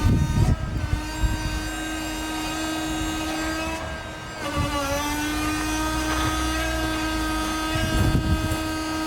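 Kennis truck-mounted crane's drive unit running with a steady hum. Its pitch dips briefly about halfway through, and low rumbling rises near the start and again near the end.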